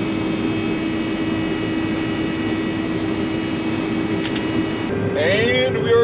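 John Deere combine harvesting standing corn, heard from inside the cab: a steady machine drone with a held whine. Near the end the hum changes pitch slightly and a voice comes in.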